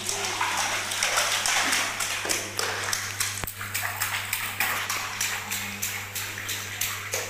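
Bathwater splashing as children slap and sweep it with their hands, a quick run of splashes that settles into about four slaps a second in the second half.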